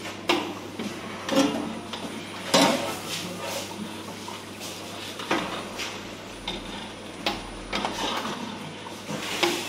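A long metal spoon scraping and clanking against the inside of a large stainless-steel cooking pot as it is stirred, with about five sharper knocks at uneven intervals.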